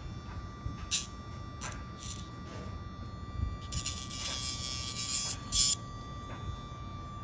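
Casfuy two-speed electric pet nail grinder running with a steady, fairly quiet high hum. A few short scratchy clicks come about a second in, and a louder hiss from about four seconds in lasts nearly two seconds.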